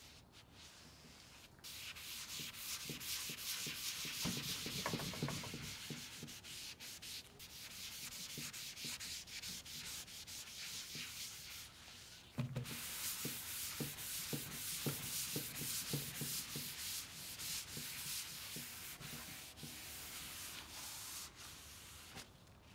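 Walnut gel stain being rubbed over a wood veneer cabinet top by hand with an applicator cloth: a steady, rhythmic scrubbing of cloth on wood. It starts about two seconds in, breaks off briefly around the middle, then resumes.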